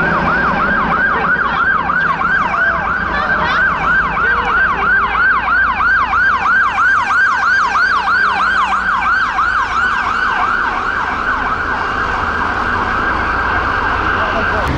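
Emergency vehicle siren on yelp: a rapid, repeating up-and-down sweep, about three a second, which blurs and fades near the end, over road traffic.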